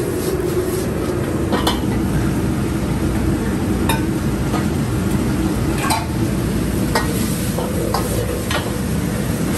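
Metal ladle stirring noodles in a steel wok, with food sizzling and a sharp clink of ladle on wok every second or so, over a steady low rush from the wok station.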